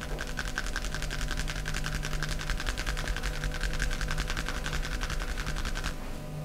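Massage hands tapping rapidly and evenly on the body in a fast run of strokes, stopping suddenly near the end.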